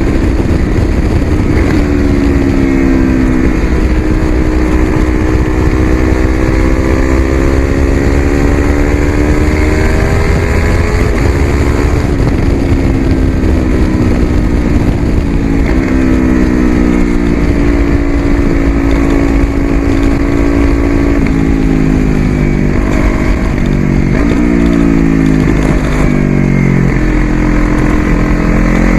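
Yamaha YZF-R3's 321 cc parallel-twin engine through an aftermarket Coffman's exhaust, running under way with the pitch climbing slowly, dropping once, then holding steady. Near the end the engine note steps down several times in quick succession, like a run of gear changes.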